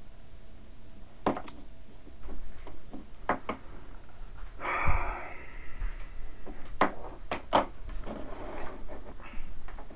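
A series of sharp knocks and clicks, with a short scraping rustle about five seconds in that is the loudest sound.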